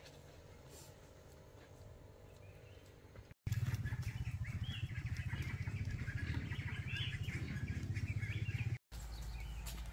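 Small birds chirping and calling over a steady low rumble, loudest through the middle few seconds.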